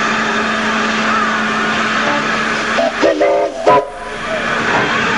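Steam locomotive, a USATC S160 2-8-0, hissing steadily. About three seconds in its whistle gives two short blasts, the second shorter than the first.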